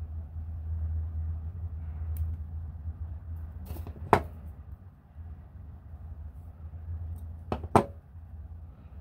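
Sharp clicks and taps from handling thin craft wire and pliers: a faint one about two seconds in, a loud one just after four seconds, and a quick pair near the end, over a steady low hum.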